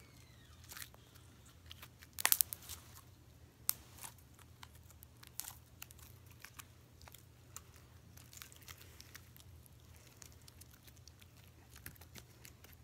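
Purple slime being stretched, folded and squeezed in the hands, giving scattered small clicks and crackling pops, the loudest a quick cluster about two seconds in.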